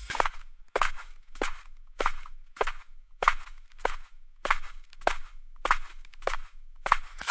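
Footsteps on gravel: a person walking at a steady, even pace, each step a short crunch, about three steps every two seconds.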